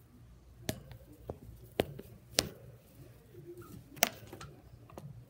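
Handling noise in a wire guinea pig cage: about six sharp clicks and taps at irregular spacing as a hand moves through the hay, with faint rustling between them.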